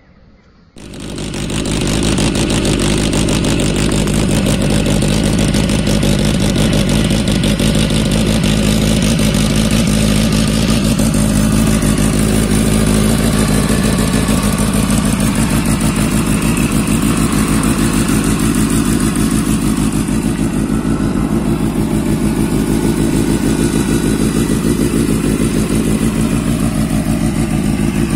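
Benelli BN 600's four-cylinder engine running steadily and loud, starting abruptly about a second in.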